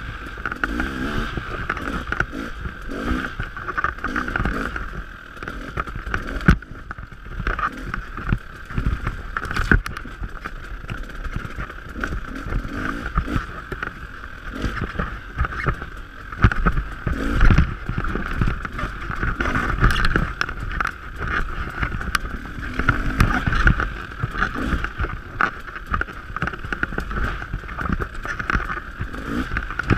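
Dirt bike engine running under way, its pitch rising and falling as the throttle is worked, with frequent sharp knocks through the ride.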